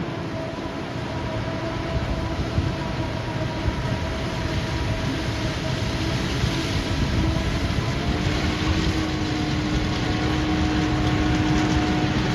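A steady low mechanical rumble with a few held humming tones, slowly growing louder, like heavy machinery running.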